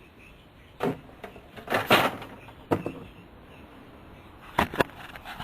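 Parts being handled: a series of separate knocks and clunks, loudest in a short cluster about two seconds in, with two quick knocks near the end.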